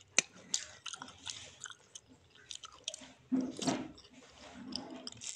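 Close-up eating sounds of lontong sayur (rice cake in vegetable broth): a metal spoon clicks sharply against a ceramic bowl just after the start, then there is wet chewing. A louder slurp comes from the spoon about three and a half seconds in.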